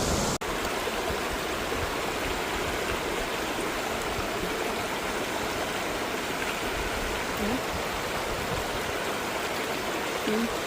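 Steady rush of cascading water from the Tokopah Falls waterfall, cut off for an instant just after the start.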